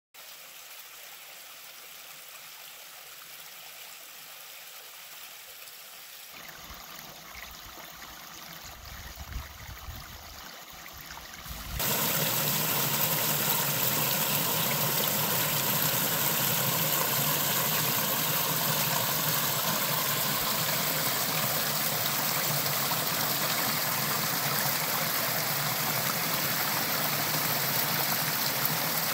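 Small waterfall splashing over rock ledges into a pool, a steady, even rush of falling water that comes in loud about twelve seconds in. Before that there is only a faint steady hiss with some low rumbling.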